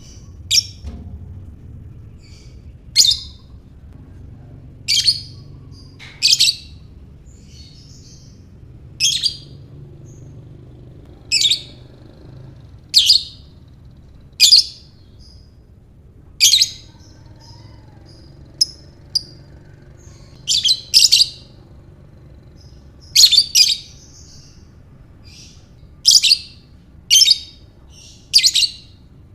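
Lovebird giving short, sharp, shrill calls, one every second or two, sometimes in quick pairs.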